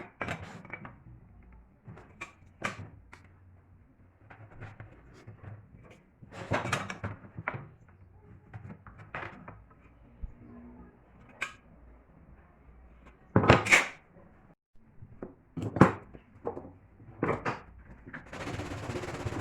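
Scattered knocks and clatter of wooden pieces and tools handled on a workbench, loudest about two-thirds of the way in. A steady hiss starts near the end.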